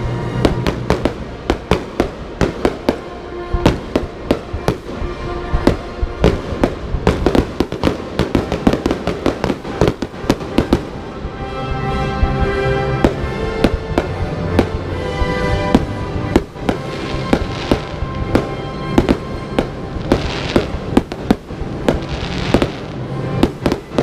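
Aerial firework shells bursting in rapid succession, many sharp bangs a second, with a hissing crackle swelling a few times in the last third.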